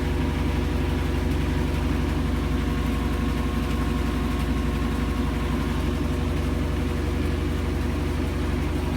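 GE GTW460ASJ4WW top-load washing machine in its high-speed spin, running with a steady drone and a dense rattle as the cabinet shakes hard. The owner takes the shaking for excessive vibration; GE's service technician called it normal.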